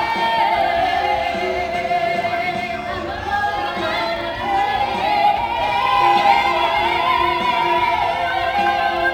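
Group of young women singing a song together, over musical accompaniment.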